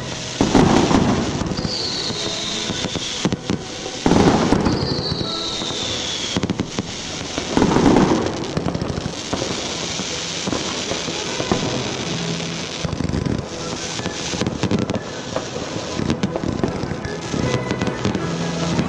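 Fireworks going off: three loud bangs about four seconds apart in the first half, two falling whistles among them, and a steady crackling noise after, over background music.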